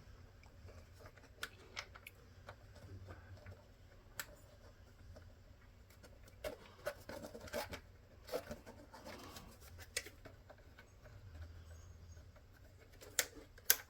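Faint scattered clicks and taps of small plastic parts being handled: the map light button being pressed onto its switch, which does not stay on.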